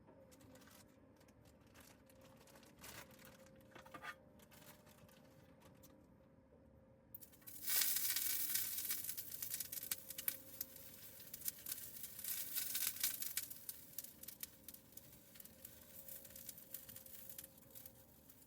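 Packaging being handled: a few faint crackles, then from about seven seconds in a loud spell of crinkling and tearing that tapers off over the following seconds.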